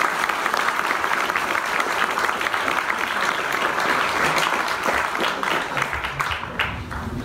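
Audience applauding, many hands clapping steadily and thinning out near the end.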